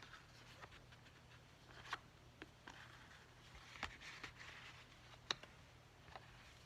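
Faint rustling and a few light, widely spaced clicks of paper tags and journal pages being handled, over a low steady hum.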